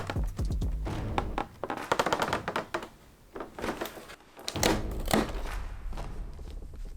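Knocks, taps and rustles from a boxed toy figure and its cardboard and plastic packaging being handled and opened. Quick clicks come in the first few seconds, then after a short lull two louder knocks about five seconds in.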